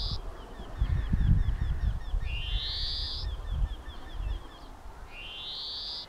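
European greenfinch singing: a long, rising wheezy note comes twice, about two seconds in and again near the end, with fast twittering trills between them.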